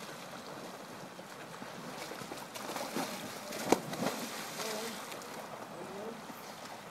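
A swimmer in a wetsuit dropping off a low pontoon into a river, a sharp splash a little under four seconds in, with splashing from front-crawl swimmers already in the water.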